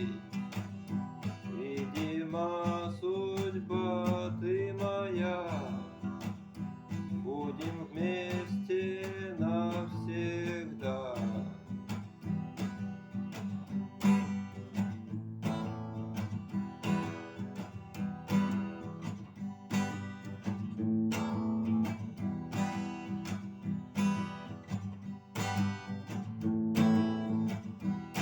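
Strummed acoustic guitar, with a voice singing the end of a chorus over it for the first eleven seconds or so, then the guitar alone playing an instrumental break.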